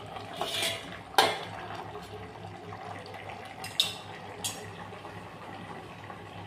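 Steel plate lid set down on an aluminium karai with a sharp clank about a second in, followed by two brief light metallic clinks near the middle. Under it, the chicken cooking in its own released juices gives a steady simmering hiss.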